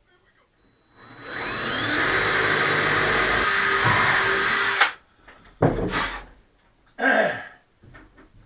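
Power drill spinning up with a rising whine about a second in, running steadily for about three seconds, then stopping abruptly. Two shorter bursts of sound follow.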